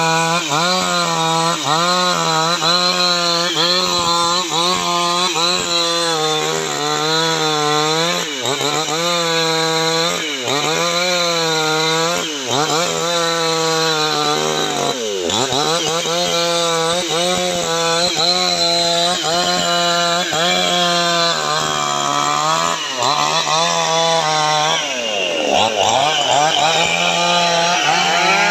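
New West two-stroke petrol chainsaw ripping a log lengthwise, running at high revs. Its pitch sags and recovers over and over as the chain bites under load, with two deep dips, about halfway and near the end.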